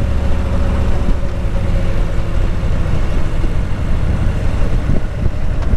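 Steady low rumble of a running motor vehicle, with a constant hum above it that stays even throughout.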